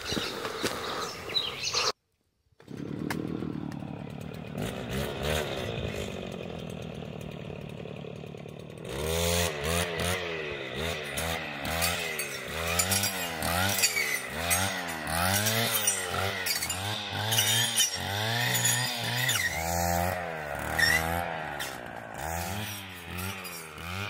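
Small two-stroke engine of a handheld power tool, such as one used for cutting cover-crop biomass. It runs with its pitch sinking at first, then from about nine seconds revs up and down over and over, in regular cycles.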